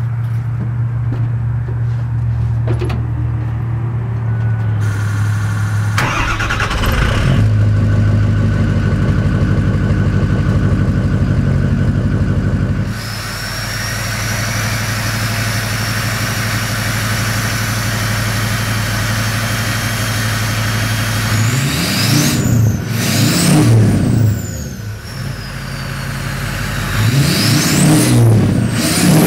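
Ford 6.0L Power Stroke V8 turbo diesel with a 5-inch MBRP turbo-back exhaust, idling and then revving: a steady high turbo whistle through the middle, and near the end two revs where the engine note rises and falls, with the turbo whistle sweeping up and back down each time.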